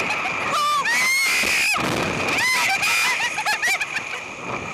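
Two young women screaming and shrieking with laughter in a string of short, high, wavering cries, with wind rushing over the microphone. There is a gust of wind noise about two seconds in.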